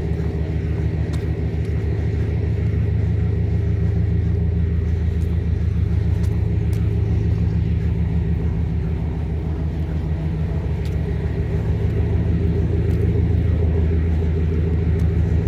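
Diesel locomotive engine idling: a steady low rumble with a fast, even pulsing beat.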